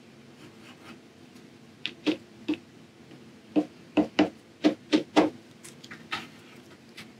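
Back end of a paintbrush handle tapping dots of acrylic paint onto gesso-coated watercolor paper: about ten short, sharp taps in small irregular runs, starting about two seconds in.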